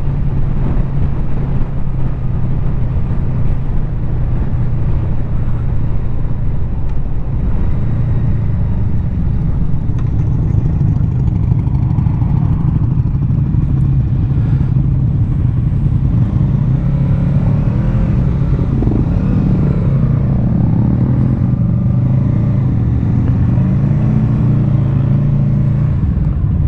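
Honda VFR800F V4 engine running as the motorcycle is ridden, a loud steady drone. Its pitch rises and falls several times in the last third as the rider changes speed.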